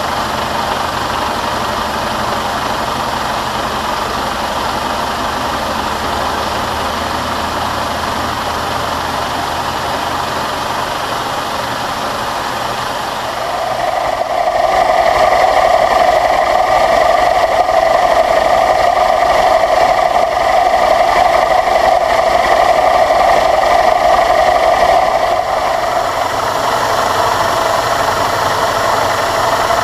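Milling machine running, its end mill cutting a keyway into a 1018 cold-rolled steel shaft under mist coolant. About halfway through the cut gets louder with a steady high tone that holds for about twelve seconds before easing back.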